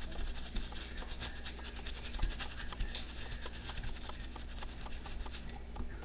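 Paintbrush scrubbing solvent-wet flux residue off a circuit board around the GPU chip after a reflow: a rapid run of scratchy bristle strokes over a steady low hum.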